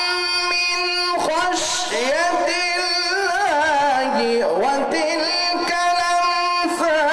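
A man reciting the Quran in a melodic, drawn-out style into a microphone, holding long notes that waver and glide up and down, with a long falling run about four seconds in.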